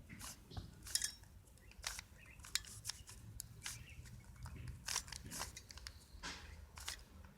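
Plastic layers of a 3x3 Rubik's Cube being turned quickly by hand, with faint irregular clicking and scraping several times a second as a long move sequence is carried out.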